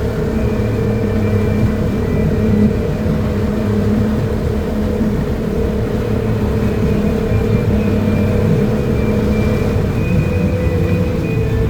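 Motorboat engine running at a steady pitch, a constant low drone.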